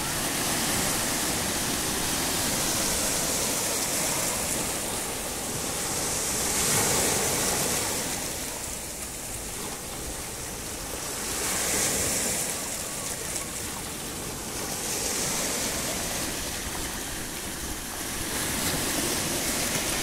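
Sea waves breaking and washing in over a beach of rounded stones, the hiss surging and easing again about every four to five seconds.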